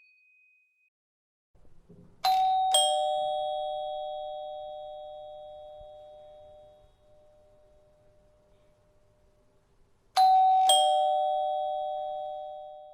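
Two-tone chime doorbell ringing ding-dong twice, about eight seconds apart: each time a higher note then a lower one about half a second later, both ringing on and fading slowly.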